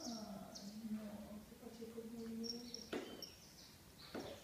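A low, drawn-out vocal sound held for about three seconds, with faint high bird chirps in the background and two short scuffs in the second half.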